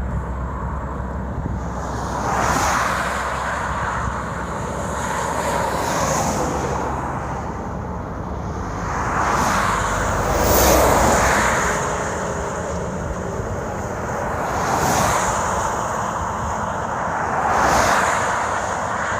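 Road traffic passing one vehicle after another, each swelling and fading over a few seconds, over a constant low rumble of wind on the microphone.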